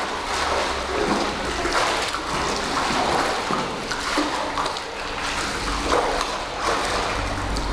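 Pool water splashing and sloshing as a swimmer kicks, towing another person on his back with survival backstroke.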